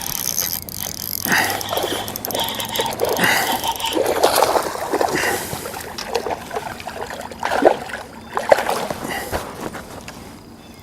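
Water splashing and trickling as a hooked largemouth bass is fought and brought alongside a kayak, with two sharp knocks about three-quarters of the way through.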